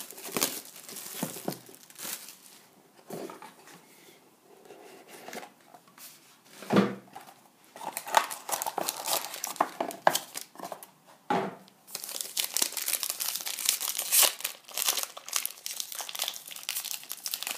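Plastic shrink-wrap crinkling and tearing as it is peeled off a cardboard trading-card box, with two dull knocks of the box being handled about 7 and 11 seconds in. From about 12 seconds in comes denser, steady crinkling as the wrapper of a sealed card pack is picked at.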